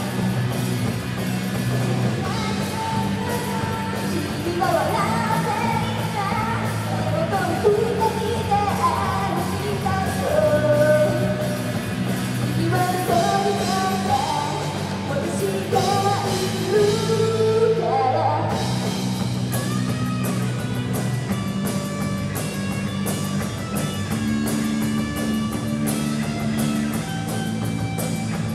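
Live rock band playing: a girl's lead vocal over electric guitars and a drum kit with constant cymbals. The sung melody stands out most in the first two-thirds, and the high end briefly drops out about eighteen seconds in before the band carries on.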